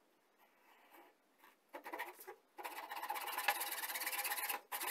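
Hacksaw cutting a wooden block: a couple of short starting strokes, then steady rasping back-and-forth sawing from about halfway in, with a brief break near the end.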